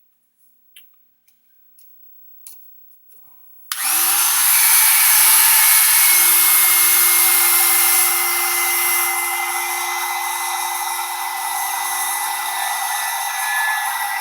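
A small power drill with a large bit in its chuck is switched on about four seconds in and runs steadily at high speed, boring into a rubber eraser. A few light clicks come before the motor starts.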